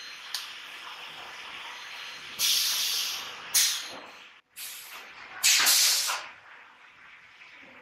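Compressed air hissing in three short bursts from pneumatic machinery on a solar panel production line, over a steady factory background noise. The first burst comes about two and a half seconds in, a shorter one follows a second later, and a third comes at about five and a half seconds.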